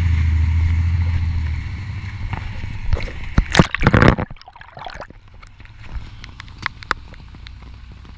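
MCI D4000 coach's Cummins diesel idling with a bad rod knock, then dying away about a second and a half in. A loud burst of rustling, sloshing noise comes about three and a half seconds in. Quieter noise with scattered clicks follows.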